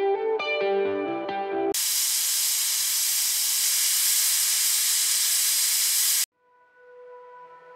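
Guitar music, then a Prestige Deluxe pressure cooker's whistle weight blowing off steam: a loud, steady hiss for about four and a half seconds that cuts off suddenly. The cooker is up to pressure and venting through its whistle, the sign that the freezer-chilled gasket is sealing.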